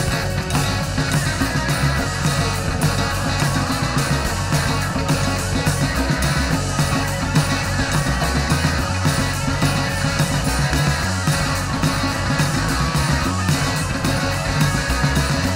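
Heavy psych rock band playing: electric guitar, bass and drums with a steady beat, no words heard.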